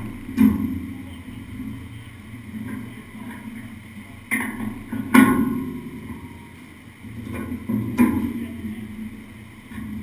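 Four sharp metallic knocks and clanks, the loudest about halfway through, as the dyno tie-down strap hardware at the car's rear is handled, over a steady low hum.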